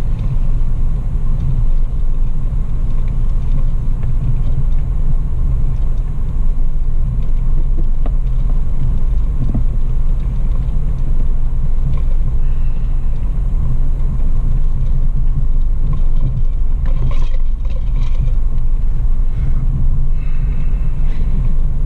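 Toyota FJ Cruiser driving slowly over a rough dirt trail, heard from inside the cab: a steady low rumble of engine and tyres on uneven ground. A few faint, brief higher sounds come in the second half.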